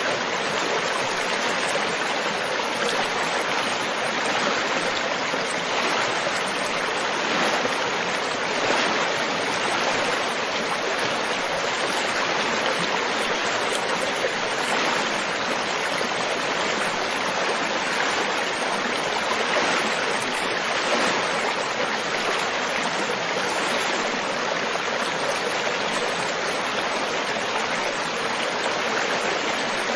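Running water, like a stream or small waterfall, rushing with a steady, even hiss.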